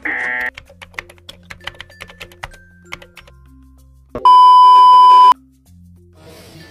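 Video-editing sound effects: a short burst at the start, then rapid typewriter-like clicks as a caption types itself out over soft background music, then a loud, steady beep lasting about a second.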